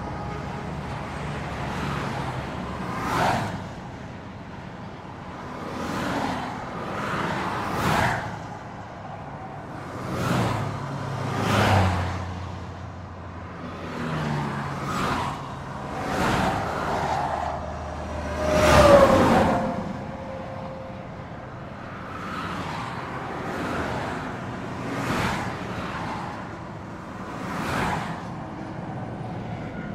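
Highway traffic: a steady rush of tyre and engine noise, with vehicles passing one after another every couple of seconds, each swelling and fading. The loudest pass comes about two-thirds of the way through.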